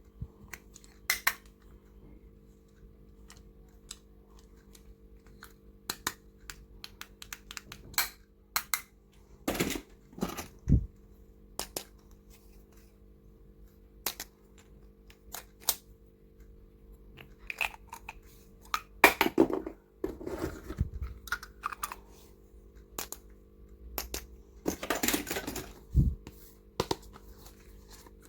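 Irregular clicks, taps and rustles of small stationery items being handled, with short louder clusters of clatter a few times, over a faint steady hum.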